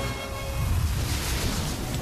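Background music mixed with a heavy low rumble and a rushing whoosh that swells about a second in: a film sound effect for a super-powered football shot tearing across the pitch.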